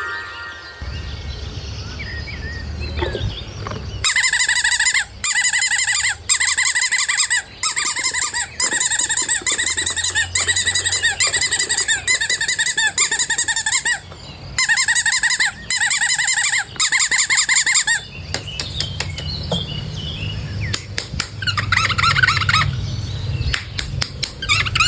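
Bird song: loud, rapid trilling chirp phrases repeating with short breaks for about fourteen seconds, followed by softer scattered clicks.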